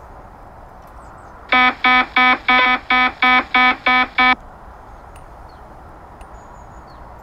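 Fish alarm from a Bonda wireless fish finder's phone app: nine short, identical electronic beeps, about three a second, as fish are marked on the sonar display. A steady background hiss runs underneath.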